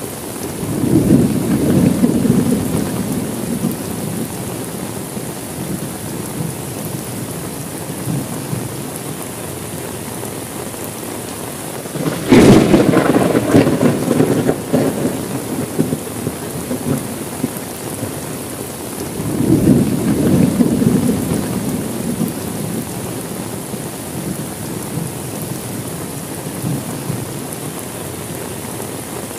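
Steady rain with thunder: a low rumble soon after the start, a sharp thunderclap near the middle that rolls on for a few seconds, and another rumble about two-thirds of the way through.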